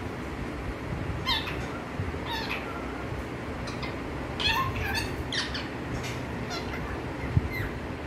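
Pet green parakeet chattering: a string of short, pitched squawks and chirps, clustered in the middle of the stretch and fainter towards the end.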